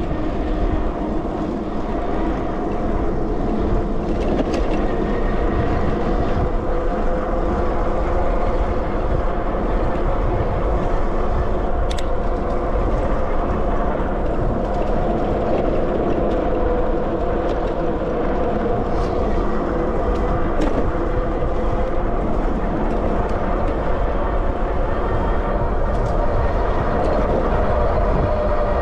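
Riding sound of a Sondors MadMods electric moped on the move: wind rushing over the microphone and tyre noise, under a steady electric-motor whine that drifts slightly in pitch. A few sharp clicks from bumps, the clearest about twelve seconds in.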